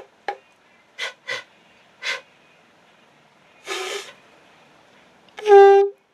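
Conch shell being blown: a few short puffs and a breathy rush of air, then near the end one brief, steady pitched blast, about half a second long and the loudest sound.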